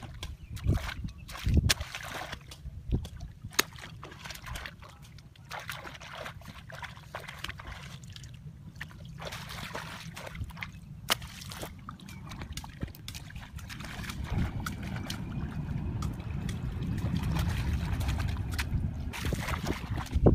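Water splashing and sloshing in a shallow muddy pool as people wade and scoop and grope with their hands, with many short sharp splashes. A low steady rumble grows louder in the second half.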